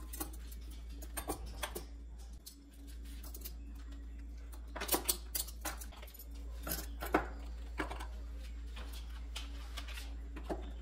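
Stainless steel forks and spoons clinking against each other and the drawer organizer as they are set in by hand: scattered light clicks and clatters, busiest about halfway through, over a steady low hum.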